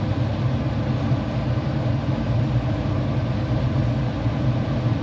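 AAON rooftop HVAC unit running with its gas heat firing: a steady low hum.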